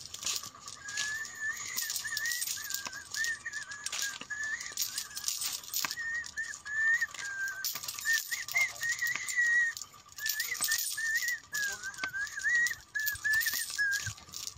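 A person whistling a wavering tune in short, gliding notes, kept up almost without pause apart from a brief break partway through.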